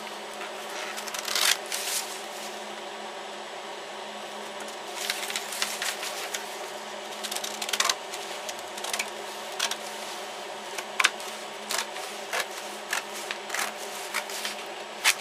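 Scissors cutting through printer paper: irregular snips and paper rustling, coming more often in the second half, over a steady low hum.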